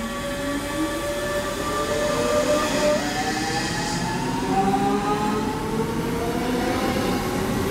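Two coupled DB Class 425 electric multiple units pulling away from a standstill. Their traction converters give several whining tones that climb in pitch as the train accelerates, jumping up in steps a couple of times, over the rumble of the wheels.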